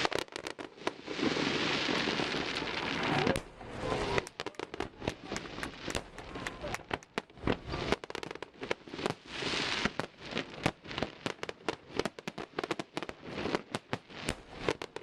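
Fireworks display going off in quick succession: a dense run of sharp bangs and crackles, with a broad rush of noise in the first few seconds and again near ten seconds.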